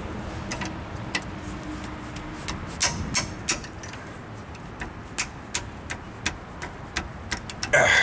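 Steel wrenches clicking and knocking against brake hardware while loosening a rear brake caliper bracket bolt, the clicks irregular at first and coming closer together in the second half. A louder scrape comes near the end.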